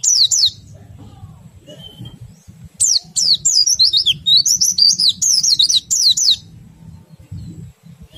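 White-eye (pleci) singing in fast runs of high, sharply falling chirps: a short run at the start, then a long unbroken run of about three and a half seconds from about three seconds in. A faint low rumble lies underneath.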